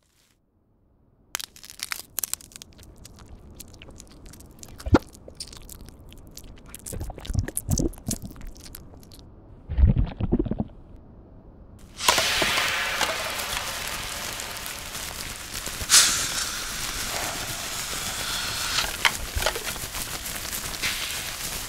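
After a second of silence, scattered crackling and crunching clicks with low thumps about 5, 7 and 10 seconds in; about halfway through a steady hiss sets in, with more crackles over it.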